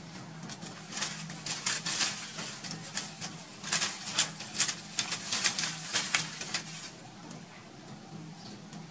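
Dry banana leaves crackling and rustling as a young monkey climbs and scrambles through the plant: a rapid, irregular run of crisp crackles from about a second in, thinning out near the end. A faint steady low hum runs underneath.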